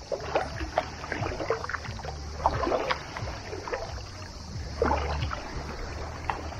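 Shallow sea water splashing and sloshing in irregular bursts as someone wades through it.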